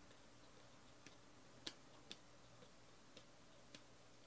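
Near silence with a handful of faint, irregular clicks of football trading cards being flicked through by hand.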